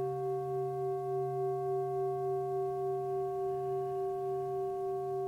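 Singing bowl ringing on after a strike: a steady tone with several higher overtones and an even, slow wavering in loudness.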